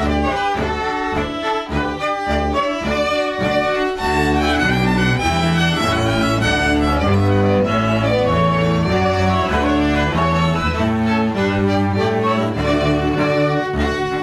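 Bowed string ensemble playing, violins over cello and bass, with short detached notes in the first few seconds giving way to longer held notes from about four seconds in.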